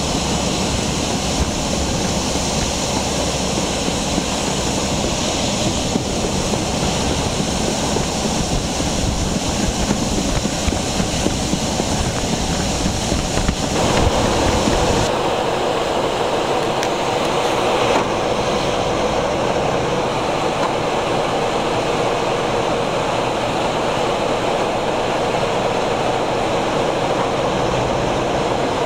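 Diesel locomotives running along the line: engine rumble, wheels on rail and wind rush past an open window. About halfway through the deep rumble drops away and a middle-pitched running noise carries on.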